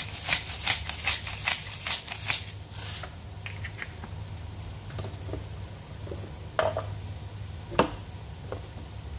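Ground black pepper being shaken out of its container over a pot of frying onions: a quick run of light rattling shakes, about three a second, for some three seconds, then two sharper single knocks later on, over a low steady hum.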